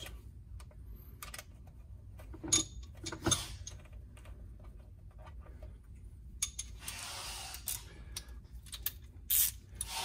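Metal battery-cable ring terminals and a nut clicking and clinking as they are handled onto a golf cart battery post. The clicks come scattered, with a short scraping rub about two-thirds of the way through.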